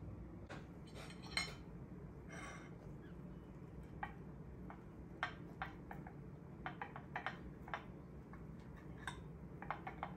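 Knife and fork clinking and scraping on a plate while cutting waffles: a scattering of short, sharp clinks, more frequent in the second half.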